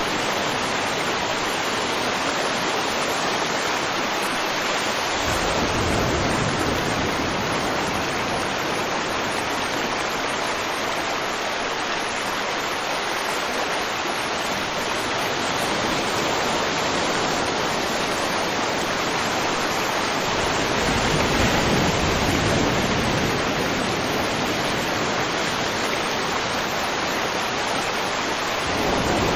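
River water rushing and flowing in a steady wash, swelling a little in depth twice.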